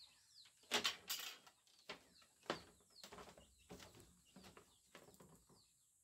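Birds chirping repeatedly in the background, with a string of rustles and knocks from the camera being handled and moved; the loudest come about a second in.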